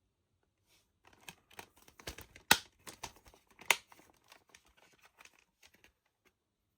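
Blu-ray discs being handled in a plastic keep case's disc tray: light rattling and ticking of plastic, with two sharp clicks about two and a half and nearly four seconds in as discs are popped on or off the tray hubs.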